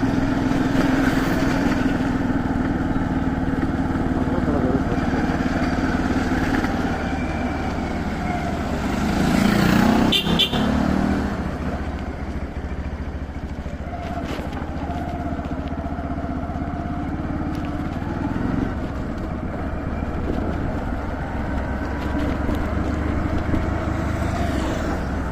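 A motor vehicle engine running steadily. About ten seconds in, the sound swells louder and a short high tone, like a horn, rings out.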